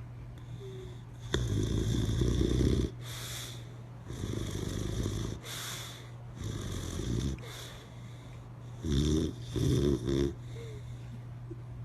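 Boxer dog snoring in its sleep: five rattling snores, the first the longest and loudest, the last two short and close together, with softer airy breaths between them.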